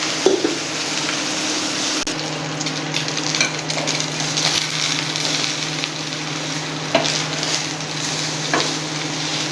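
Bread coated in beaten egg frying in oil on a hot dosa tawa: a steady sizzle, with a few light clicks and a low steady hum underneath.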